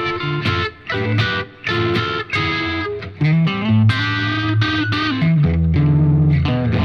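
Electric guitar overdriven through an Origin Effects Revival Drive pedal into a Diezel Schmidt amp, playing a few short chord stabs and then longer held chords and notes with a dark, vintage-style crunch.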